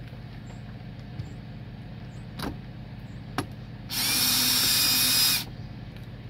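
RIDGID cordless drill/driver running for about a second and a half with a steady whine, driving a screw into a camper door latch. Two light clicks come just before it.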